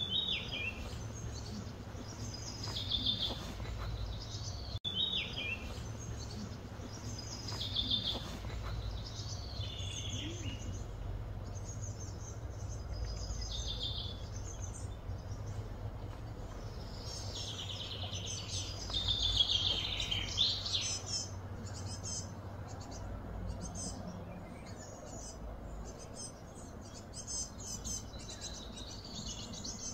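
Birds calling over and over in short chirping phrases that drop in pitch, busiest and loudest about two-thirds of the way through. After that a fast pulsing insect trill carries on, all over a steady low hum.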